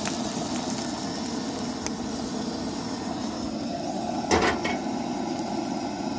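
Propane camp stove burner running with a steady roar under a cast-iron pan. About four seconds in there is a single sharp clank of metal cookware.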